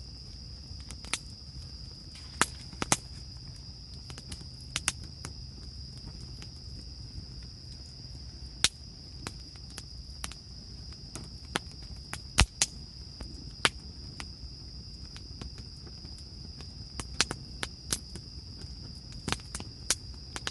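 Insects chirring in one steady high-pitched tone, with a low steady rumble underneath and irregular sharp clicks and cracks scattered through, one louder crack about twelve seconds in.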